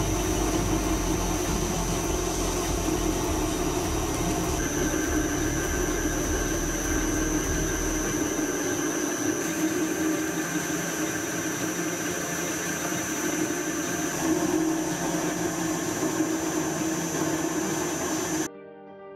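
Metal lathe running and turning a metal shaft between chuck and live centre, the tool cutting steadily: a constant machine hum with a steady high whine. A low rumble drops away about eight seconds in, and the sound cuts off suddenly near the end.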